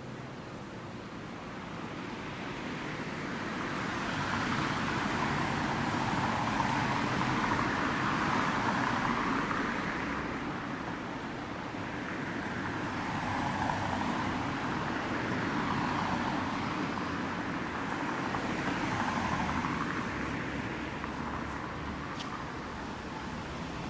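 Road traffic: cars passing one after another, each swelling and fading away over a few seconds.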